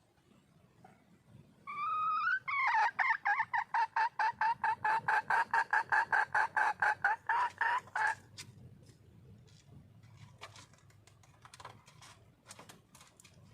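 Red junglefowl hen calling to attract a male: a short drawn-out note, then a fast run of about five or six pitched notes a second for some five seconds that stops abruptly. A few faint clicks follow.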